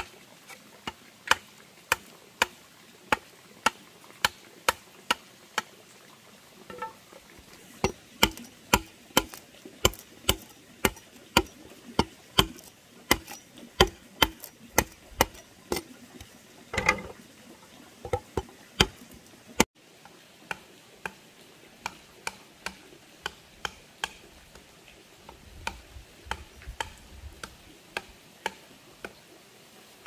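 Sharp, evenly spaced taps of a hand tool on wood, about two a second, quicker and louder through the middle stretch and softer in the last third.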